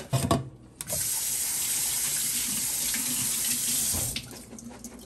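Kitchen faucet running in a steady stream onto canned beans being rinsed. It starts suddenly just under a second in and is shut off about three seconds later.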